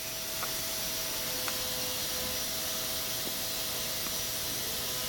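Steady background hiss with a faint, steady hum and a few faint ticks; no clear hiccup stands out.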